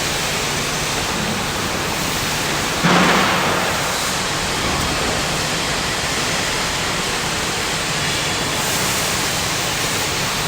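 Steady loud rushing noise, with a brief louder hiss about three seconds in that fades over a second.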